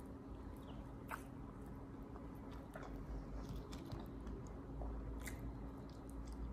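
Faint chewing and small scattered clicks of a person eating fried chicken, over a low steady hum.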